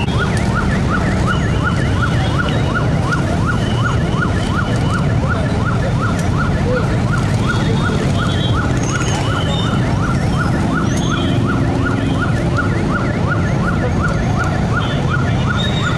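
Army bomb disposal truck's siren wailing in a fast yelp, about three rising-and-falling sweeps a second, held steadily throughout, over a low rumble of traffic and crowd noise.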